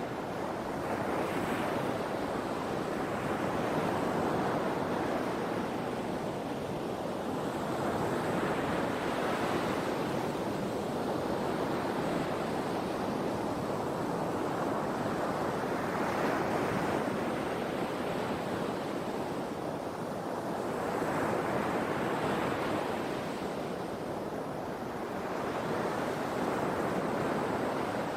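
Ocean surf: waves breaking and washing up the shore, the hiss swelling and falling back about every four to five seconds.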